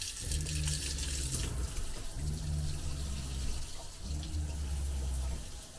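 Water running from a brushed-nickel pull-down kitchen faucet into a stainless steel sink, turned on at the start. The hiss is strongest in the first second and a half. Under it a low hum cuts in and out about every two seconds.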